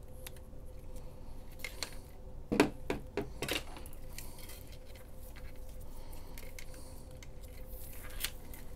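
A flexible LED strip being pulled from a tangled pile and handled on a desk, making light rustling and clinking. A quick run of sharp clicks comes about two and a half to three and a half seconds in, with a few fainter clicks near the end.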